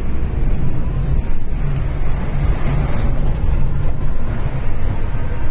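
Inside a bus in heavy rain: the diesel engine drones steadily low, with the even hiss of rain on the windows and roof.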